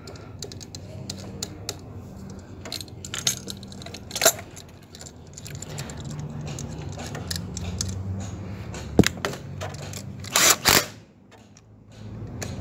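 Small metallic clicks and clinks of hand work under the hood as ignition coils are pulled off and swapped between cylinders. There is a sharp click about nine seconds in, a couple of short noisy bursts just after it, and a faint low hum underneath.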